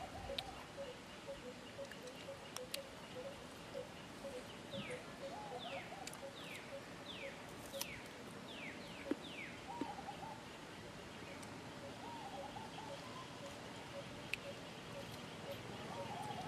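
Birds calling outdoors: a steady run of evenly spaced low notes, a wavering call that comes back every few seconds, and seven quick falling whistles in the middle, with scattered faint clicks.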